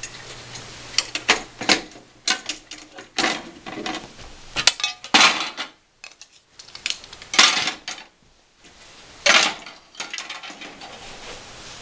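Loose cheap plastic parts of a smashed Soundesign turntable, its platter and cracked dust cover, being set back onto the unit: a string of sharp plastic clacks and clattering knocks with short pauses between them.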